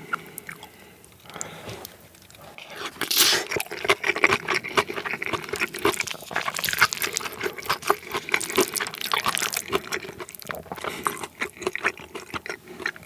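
Chopsticks and a wooden spoon stirring and mashing a wet tuna-mayonnaise mixture in a ceramic bowl: a dense run of small wet clicks. It starts quietly and gets busier about three seconds in, then thins out near the end.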